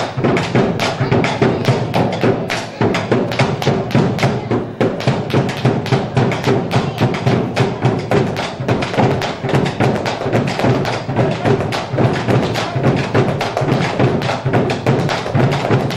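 Argentine folk music playing with a steady, driving percussive beat.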